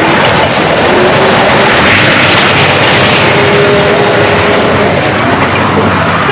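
Car engines revving hard while tires spin and smoke on asphalt as cars do donuts. A loud, continuous wall of noise.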